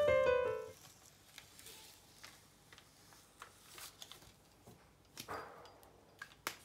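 Background music ending on a last held chord that dies away within the first second, then faint scattered light taps and a short soft rustle of a paper chart and pen being handled.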